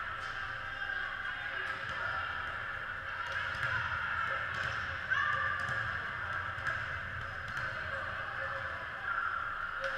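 Echoing gymnasium ambience during a volleyball game: a steady wash of distant players' and onlookers' voices and calls, with scattered short sharp squeaks and knocks.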